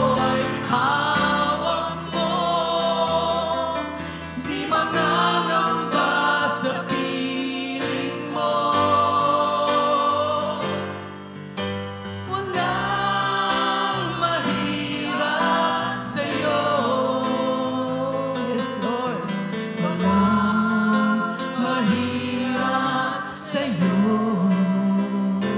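Live Tagalog worship music: a woman singing the lead into a microphone with backing singers, over band accompaniment with keyboard.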